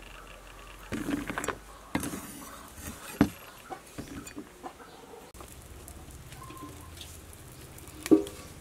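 Chopped shallots, garlic and galangal scraped off a knife blade into a plastic basket, with light knocks and patters of the pieces falling in. A single loud thump near the end.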